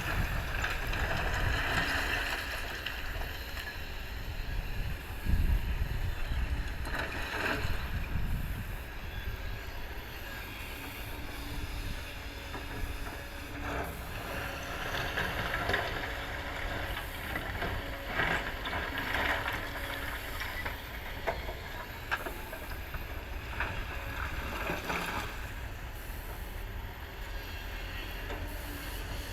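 Kobelco hydraulic excavator's diesel engine running steadily, with occasional short knocks and clanks of the machine at work.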